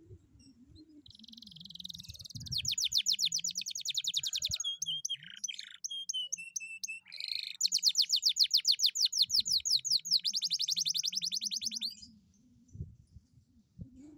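Domestic canary singing: a long song of fast, rattling trills of repeated high notes, broken in the middle by a few slower whistled notes. It starts softly about a second in, gets loud, and stops about twelve seconds in.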